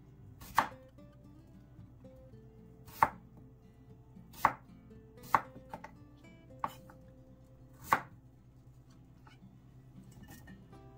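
Kitchen knife cutting peeled Korean white radish into chunks on a bamboo cutting board, each cut ending in a sharp knock of the blade on the wood. About seven cuts come irregularly, one every second or two, and stop a few seconds before the end.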